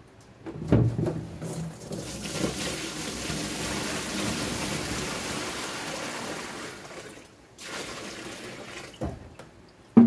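Water being poured into a large plastic storage box, a steady rushing pour that eases off about seven seconds in. A thump of handling comes near the start and a sharp knock at the end.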